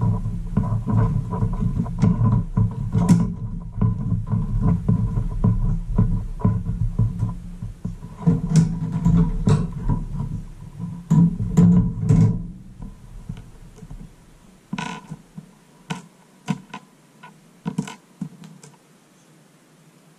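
Background guitar music with bass. It thins out to sparse single notes about two-thirds of the way through.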